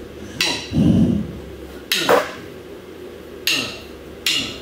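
Drum kit struck a few times, single hits with ringing cymbal overtones, irregularly spaced about a second apart.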